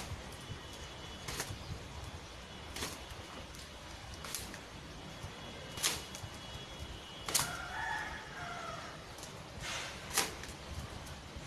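A twisted cotton towel swung and slapped against long wet hair, giving a sharp swishing slap about every one and a half seconds, around eight in all.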